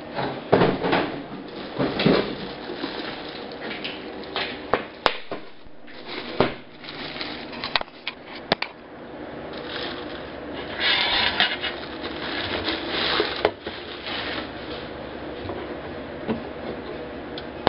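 A TIG welder foot pedal and its cable being unwrapped and handled: plastic wrapping crinkling, with many sharp knocks and clatters as the pedal and cable are moved about on a workbench. The crinkling is loudest about eleven to thirteen seconds in.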